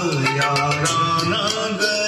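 A Hindi film song playing from a vinyl record on a Dual 1219 turntable, heard through Pioneer HPM700 loudspeakers in the room.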